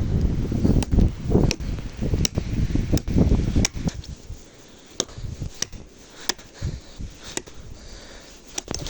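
Repeated chopping blows on wood, a sharp strike a little more than once a second, quieter in the second half.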